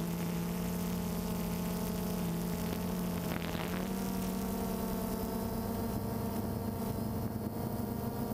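DJI Phantom 2 quadcopter's motors and propellers humming steadily in flight, heard from the drone's own camera, the pitch stepping slightly higher about four seconds in.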